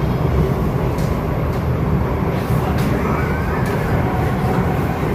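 Steady running noise heard from inside an SMRT C751B train car under way: a low rumble of wheels on rail and running gear, with a few faint clicks.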